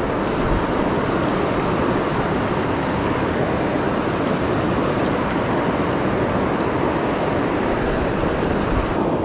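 Fast mountain river rushing steadily over rocks and through whitewater rapids.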